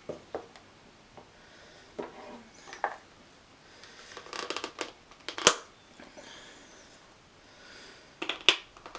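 Plastic statue parts being handled and press-fitted together: scattered rustling and light knocks, with two sharp clicks, one about midway and a louder one near the end.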